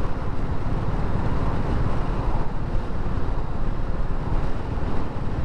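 BSA Gold Star 650's single-cylinder engine running steadily while riding, with wind rushing over the onboard microphone.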